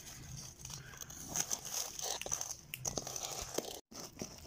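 Spatula stirring and scraping thick cake batter of flour, sugar, eggs and oil around a steel pot, with irregular wet clicks and scrapes. The sound cuts out for a moment near the end.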